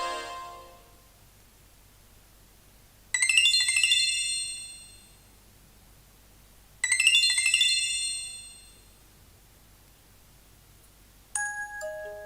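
Nokia 6500 Classic phone tone: a short, bright chime sounds twice, about four seconds apart, each ringing out over about two seconds. A previous tone fades away in the first second, and a different, steadier tone starts just before the end.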